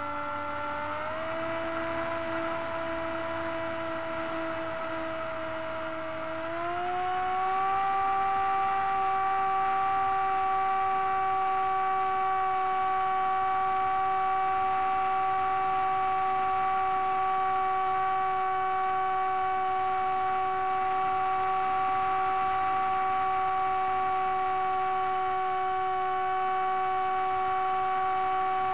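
Motor and propeller of a radio-controlled seaplane heard from its onboard camera, running with a steady whine. The pitch steps up about a second in and again around six seconds in as the throttle is opened, then holds steady and louder through the climb.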